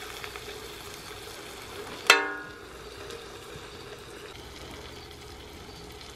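Meat and vegetables sizzling in a disco (cowboy wok) as a spatula stirs them. About two seconds in, one loud, ringing metallic clang as the spatula strikes the metal disc.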